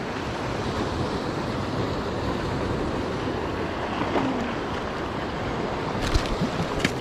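Steady sea surf washing on a rocky shore, mixed with wind on the microphone, with two short clicks near the end.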